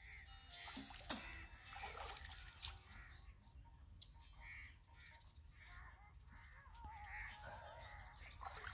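Faint, scattered bird calls over a low steady rumble, with one wavering call about seven and a half seconds in.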